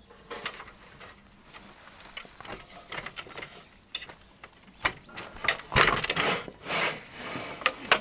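A folding rack of wooden slats on a black metal scissor frame being collapsed: the slats clack together and the frame joints click, with the loudest clattering about five to seven seconds in.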